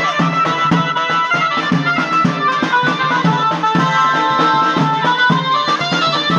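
Music with held melody notes over a quick, steady drum beat.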